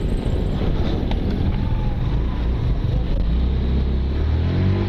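Wind buffeting the microphone over road noise and the running engine of a Honda Click 150i scooter riding at low speed. A steadier low engine hum grows stronger from about three seconds in, as another motorcycle rides close alongside.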